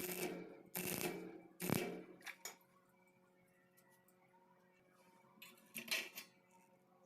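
Three hard scraping strokes on metal, a little under a second apart, then a few light clicks and, near the end, a short burst of scraping and tapping.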